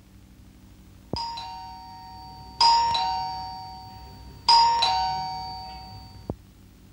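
Electric doorbell chiming ding-dong three times, about a second and a half apart, each a higher note then a lower one that rings on and fades; the first is softer, and the ringing cuts off abruptly near the end.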